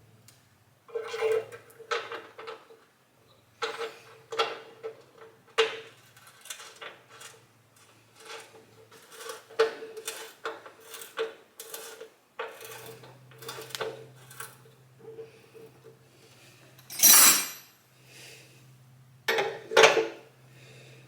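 Metal tools and parts clinking and knocking during hands-on work, many separate sharp strikes over a faint steady hum. About seventeen seconds in, a brief loud hiss-like rush.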